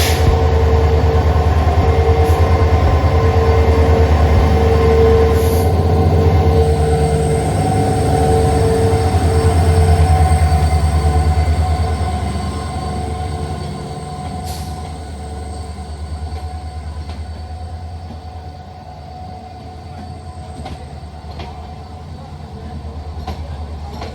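Moving passenger train: a steady low rumble of wheels on rails with a constant whine over it. It grows noticeably quieter about halfway through, and a few sharp clicks come near the end.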